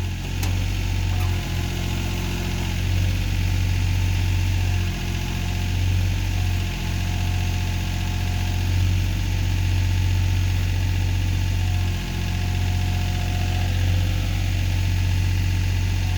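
John Deere backhoe's diesel engine running steadily while the hydraulics work the boom and bucket in digging, its note dipping briefly a few times, with a faint whine coming and going as the controls are moved.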